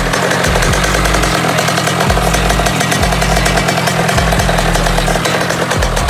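Derbi moped's two-stroke engine running and revving up and down, after a carburettor refit.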